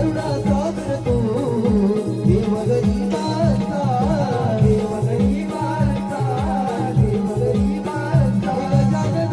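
Marathi folk devotional music, a shahiri prayer to Ganesh: a hand drum beats steady strokes under held low notes, with a winding melodic line above.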